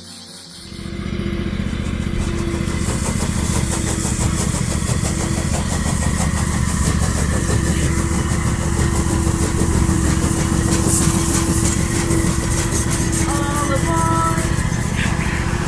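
An engine running steadily and loudly, coming in just under a second in. A few short high chirps sound over it near the end.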